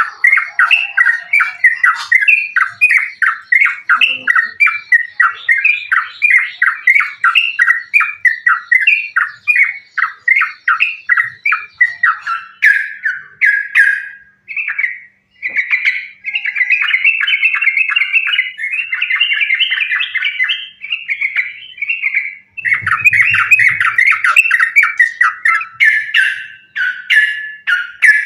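Yellow-vented bulbul (trucukan) singing in a fast, unbroken string of loud chattering notes in an excited, combative mood. The run pauses briefly about halfway through.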